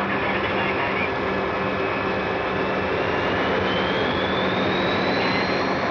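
Aircraft engines running at high power during a takeoff run, a dense steady roar with a thin whine that rises steadily in pitch from about two seconds in.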